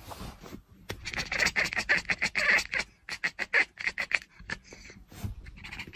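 Quick scratching or scraping strokes in a fast run, about five or six a second, with a short break about three seconds in.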